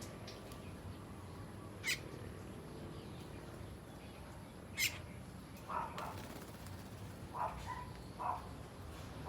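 Asian glossy starlings calling: two sharp, shrill calls about three seconds apart, then several shorter, lower calls in the second half.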